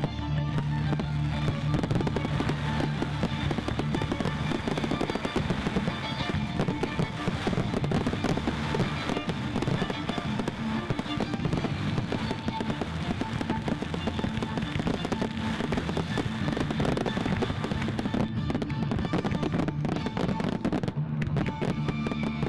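Fireworks display going off over music: many bangs and crackles in rapid succession throughout.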